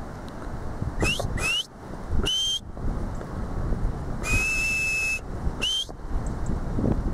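Shepherd's whistle commands to working sheepdogs. Two quick rising whistles about a second in are followed by a short whistle that rises and then holds. A long level whistle comes in the middle, and another short rising whistle near the end. Wind rumbles on the microphone underneath.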